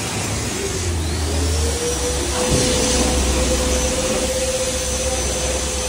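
Car-wash machine motor running with a steady whine that rises in pitch about a second in and then holds, over a low rumble and hissing spray, with a single knock midway.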